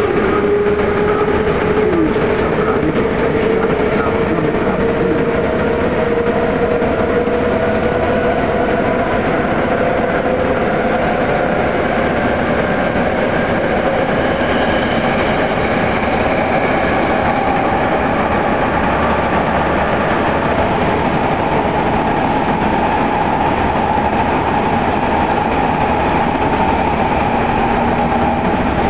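Vagonmash 81-series metro train running through a tunnel, heard from inside the car: a steady loud rumble of wheels on rail with a motor whine that climbs slowly in pitch as the train gathers speed.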